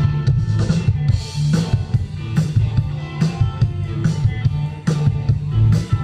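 Rock band playing live: a heavy bass line under electric guitars, with drum-kit hits about twice a second.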